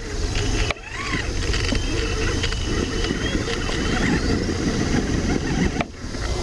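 Electric RC monster truck (Traxxas Summit with a Castle Mamba Monster X brushless system) crawling over dirt: a thin motor whine rises steadily in pitch about three seconds in as the throttle is fed. Under it runs a rough crunch of tyres and drivetrain over a steady low rumble, and the sound cuts out briefly about a second in and again near the end.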